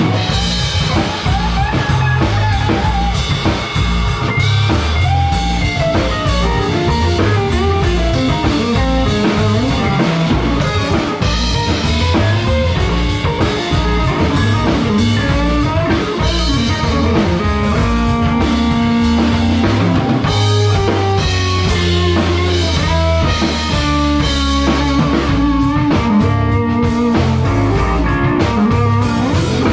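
A small band playing an instrumental fusion tune live: a hollow-body electric guitar, a Tobias electric bass and a drum kit play together without a break.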